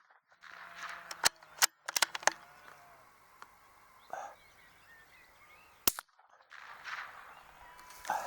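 Sharp cracks and clicks: a quick cluster of about five starting about a second in, and a single one near six seconds, over faint birdsong.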